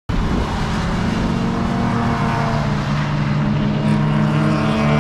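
Race car's LS V8 engine running at fairly steady high revs on track, its pitch drifting only slightly. It cuts in abruptly right at the start.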